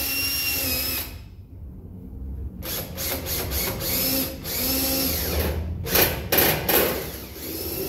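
Cordless drill/driver running in short bursts as screws are driven into a door frame, the motor whining as it spins up and slows down. A few sharp clicks or knocks come between bursts about two-thirds of the way through.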